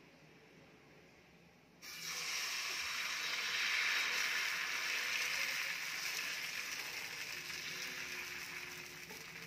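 Dosa batter sizzling on a hot griddle (tawa): a loud hiss starts suddenly about two seconds in as the batter hits the pan, then slowly dies down while it is spread out in circles with the back of a bowl.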